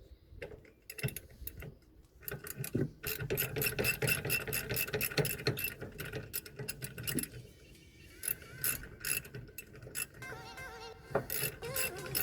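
Socket ratchet clicking in fast runs as the brake bolts, already broken loose, are wound out, with a short pause part way through.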